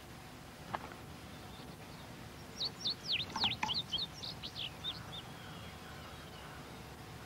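A songbird sings one quick phrase of varied high chirps and sweeping notes, about two and a half seconds long. A single click comes shortly before it, over a steady faint hiss of outdoor background.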